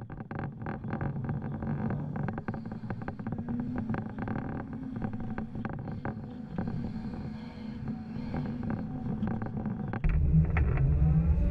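Sunward SWE 230E excavator's Isuzu six-cylinder diesel engine running steadily, with many short clicks and knocks over it. Near the end the sound suddenly gets louder and deeper.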